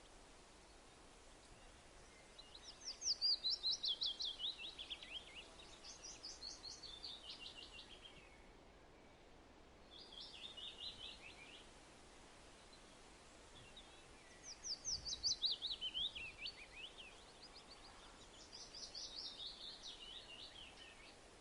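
A songbird singing: rapid trills of quick repeated notes, each phrase falling in pitch over about two seconds, given five times with short pauses between.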